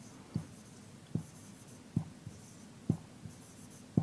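Marker writing on a whiteboard on a stand: a run of five low knocks a little under a second apart, each louder than the last, as the pen strokes strike the board, with faint scratching between them.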